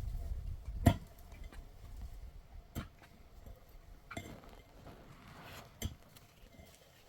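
Four sharp clinks and knocks, a second or two apart, like hard objects or utensils being handled, over a faint low rumble that fades in the first second.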